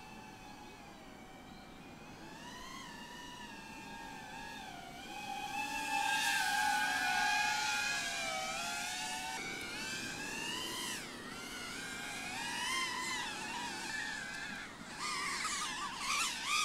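GEPRC Cinelog35 cinewhoop FPV drone's motors and ducted propellers whining, the pitch rising and falling with the throttle. It is loudest about six to eight seconds in, with quick up-and-down swoops near the end.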